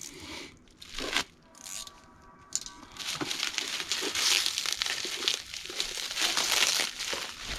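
Plastic packaging being torn open and crinkled by hand: a few quieter rustles at first, then loud, continuous crinkling from about three seconds in.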